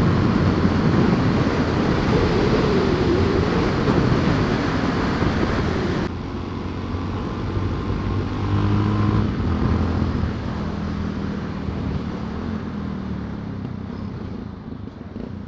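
Onboard sound of a Yamaha XT660's single-cylinder engine with wind rushing past: strong wind noise over the engine for the first six seconds, then the wind drops suddenly and the engine note eases off and fades as the bike slows.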